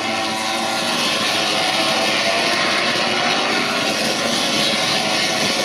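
A pack of MotoGP race bikes running at high revs, their four-cylinder engines screaming together in a loud, steady wail.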